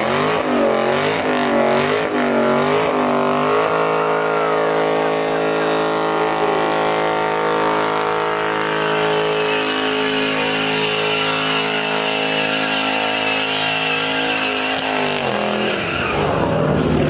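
A car doing a tyre-smoking burnout. The engine revs in quick pulses for the first few seconds, then is held at high revs for about ten seconds with the tyres squealing, and drops off near the end.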